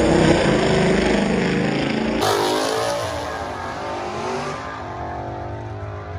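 Twin-turbocharged 2019 Ford Mustang GT's 5.0 V8, with a Corsa Xtreme catback exhaust, at full throttle, accelerating hard away from the drag-strip starting line. It is loud at first and fades steadily as the car pulls away down the track.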